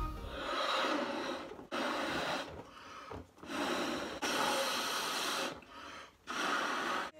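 A person blowing air into latex balloons in a run of hard breaths, each about a second long, with short, quieter in-breaths between them.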